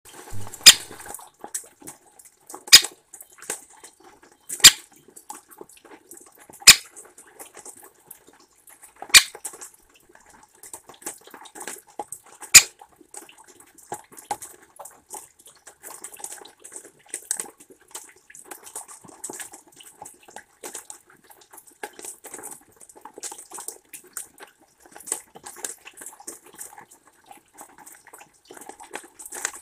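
Great spotted woodpecker pecking in a wooden feeder tray of sunflower seeds: six sharp knocks of its bill about two seconds apart in the first half. Rain patters and drips on the wet deck and tray throughout.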